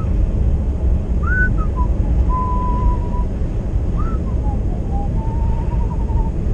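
A man whistling a tune with his mouth: held notes and short slides, with a wavering trill near the end. Under it runs the steady low rumble of the car driving, heard from inside the cabin.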